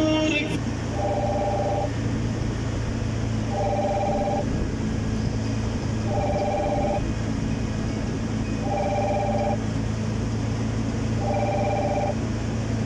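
A phone ringing: a trilled two-tone ring just under a second long, repeating about every two and a half seconds, five times, over a steady low hum.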